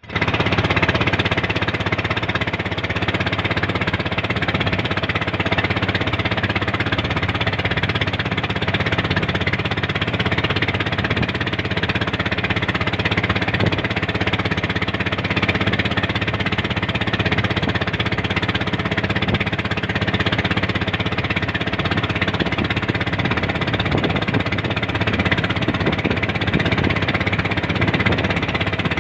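Small wooden fishing boat's engine running steadily under way, a fast, even chatter of firing strokes.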